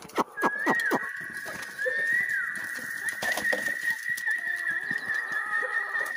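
Flock of free-range chickens clucking and squawking as they feed, with short falling calls in the first second. A steady, high whistling tone with small wavering turns starts about half a second in and keeps going.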